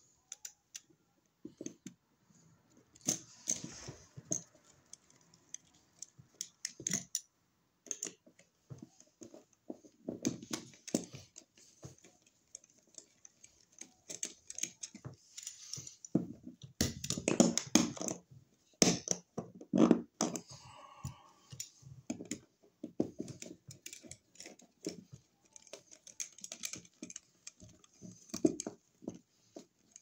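Hand screwdriver working the screws and metal mounting strap of a wall receptacle as it is fastened into the electrical box: irregular small clicks, taps and scrapes of metal and plastic, with a louder stretch of knocks a little past the middle.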